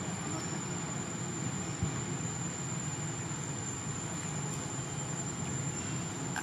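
Steady low rumbling noise under a constant high-pitched insect drone, with one soft thump about two seconds in.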